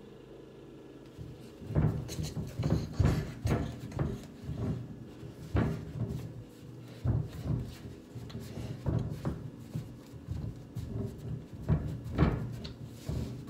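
Socked feet thudding and stomping on a shelf board as a child dances and jumps, in irregular thumps of varying strength starting about a second and a half in.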